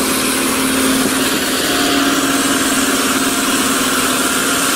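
Diesel engine of a tracked crawler tractor running steadily under load, a loud even drone with a constant low hum.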